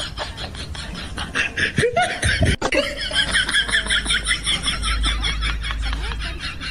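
Laughter: a run of quick, high-pitched laughs, with a loud low burst just after two seconds in.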